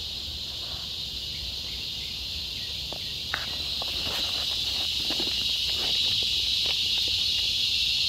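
Cicadas droning in one steady, high, even buzz that swells louder from about halfway, with a few faint clicks close by.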